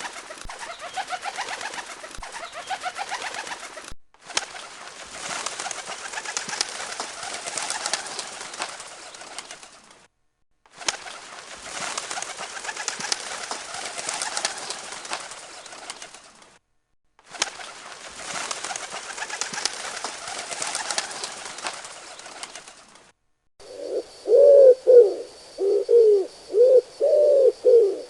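Pigeons cooing: several stretches of dense, overlapping cooing from many birds over a hissy background, broken by short gaps, then near the end a close pigeon giving a run of loud, clear, low coos, about two a second.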